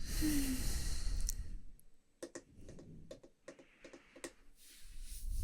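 A close breath blown onto the microphone, then a handful of light, scattered clicks, then another breath drawn in near the end.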